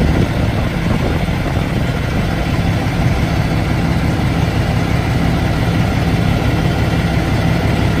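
A 2012 Peterbilt truck's diesel engine idling steadily after being started by remote start.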